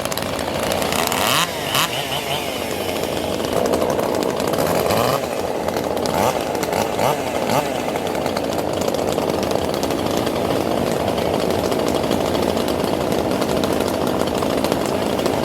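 Competition chainsaw running at high revs, cutting through a log in a timed race.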